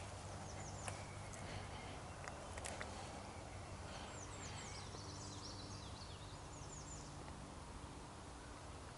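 Songbird singing faintly in the trees: runs of quick downward-sliding chirps, a short run near the start and a longer string through the middle. A few light clicks sound over it.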